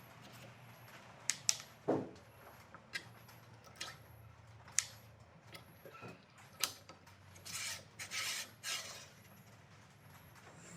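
Workshop handling sounds of parts and tools being worked by hand: scattered sharp clicks and knocks, then two short rubbing or scraping sounds about three quarters of the way through, over a faint steady low hum.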